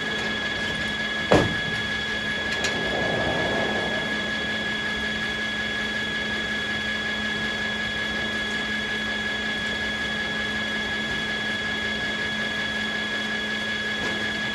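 Sawmill machinery running steadily with a constant whine over a mechanical hum, and a single sharp knock about a second in.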